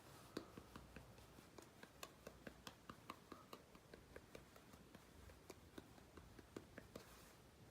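Faint, irregular light clicks and taps, about two to four a second, from small toy kitchen pieces being handled and set down.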